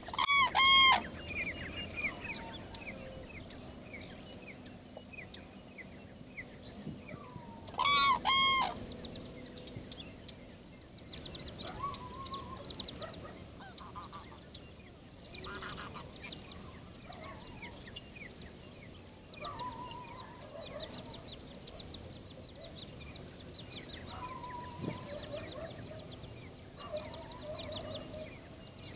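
Birds calling: two loud volleys of short repeated honking calls, each call dipping and rising in pitch, one right at the start and one about eight seconds in. Fainter short calls and small-bird chirps continue in between.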